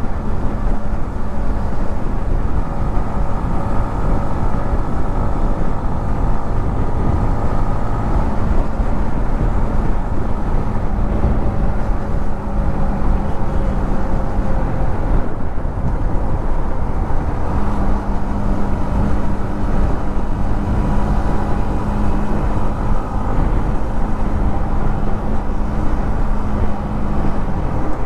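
Yamaha MT-15's 155 cc single-cylinder engine running continuously while being ridden, its note shifting in pitch a few times, briefly dropping out about halfway through before returning. A steady low rumble of wind and road noise runs underneath.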